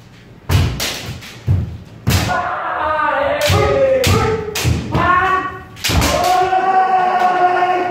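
Kendo sparring: about eight sharp hits of bamboo shinai strikes and stamping footwork, some in quick pairs, with long drawn-out kiai shouts between them, the last held for nearly two seconds.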